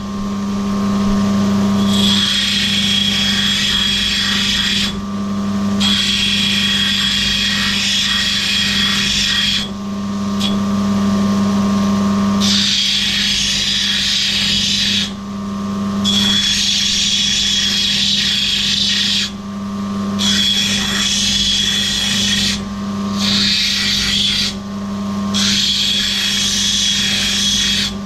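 An opal being ground on a wet lapidary grinding wheel. The machine's motor hums steadily, and the grinding hiss with a high whine in it comes in about seven spells of a few seconds each. It breaks off briefly each time the stone is lifted from the wheel.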